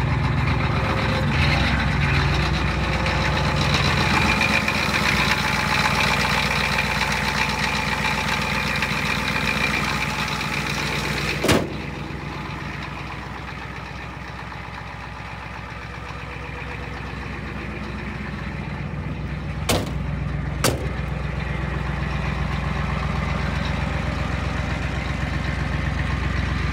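Ford 6.9 L IDI V8 diesel with an added turbo idling steadily, freshly fired up on starting fluid because its glow plugs don't work. A sharp click comes about eleven seconds in, after which the engine sounds quieter for a while, and two more clicks come close together near twenty seconds.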